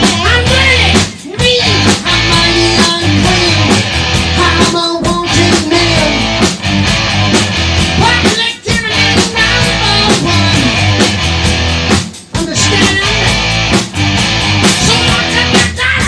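Rock band playing live in a small room: distorted electric guitars and a drum kit, loud and driving, with the band dropping out for a split second about every three and a half to four seconds.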